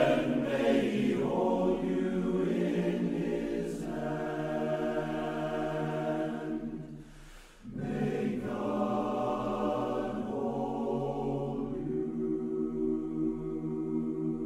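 Men's barbershop chorus singing a cappella, holding sustained chords in close harmony, with a brief break between phrases about seven seconds in.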